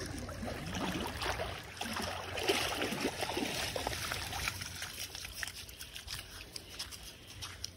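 A Newfoundland dog wading and splashing through shallow river water with a stick in its mouth, water sloshing around its legs. The splashing thins out about halfway through as the dog walks out onto wet sand.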